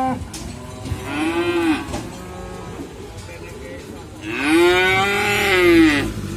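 Cattle mooing: a short moo about a second in, then a longer moo near the end that rises and falls in pitch.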